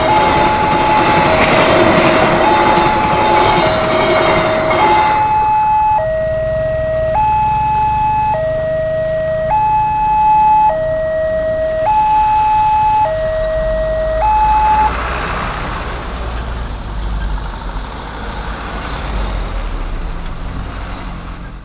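Railway level-crossing warning alarm sounding, a two-note electronic tone alternating high and low about every second. A passenger train runs past under it for the first five seconds or so. The alarm stops about fifteen seconds in, and vehicle engines are heard as road traffic crosses the tracks.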